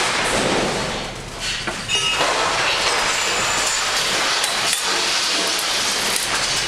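Loud, steady rushing and rattling inside a ship's lounge rolling in a heavy storm, with glass and loose objects clinking and knocking a few times.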